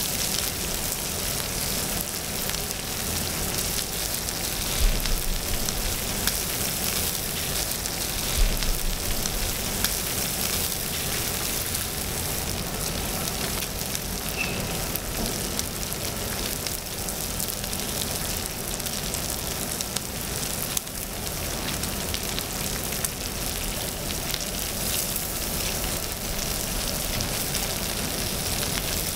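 Pork belly and aged kimchi sizzling steadily on a hot griddle, a continuous fine crackle of rendering fat. Two short knocks stand out about five and eight seconds in.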